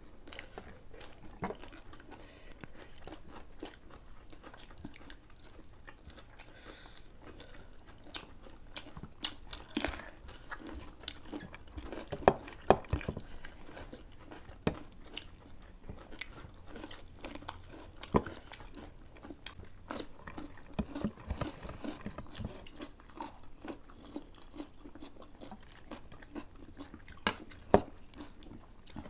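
People chewing and crunching through a meal of fried chicken, cucumber and raw greens eaten by hand, with a sharp crunchy bite now and then.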